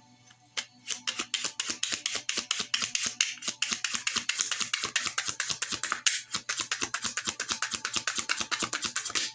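Tarot deck being shuffled by hand: a quick, even run of card clicks, about seven or eight a second, that stops abruptly near the end.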